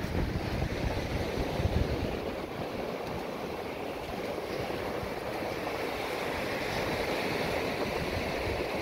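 Surf breaking and washing up a sandy beach, a steady rushing noise. Uneven low rumbling thumps over it in the first two seconds.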